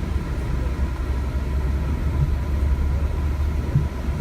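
Hurricane-force wind buffeting the microphone: a heavy, uneven low rumble.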